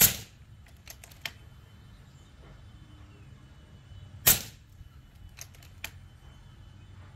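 Two moderated shots from an FX Impact M3 .25 PCP air rifle firing slugs through a Donnyfl Fatboy 2.0 sound moderator: a sharp crack right at the start and another about four seconds in, each dying away quickly. Fainter clicks follow each shot about a second later.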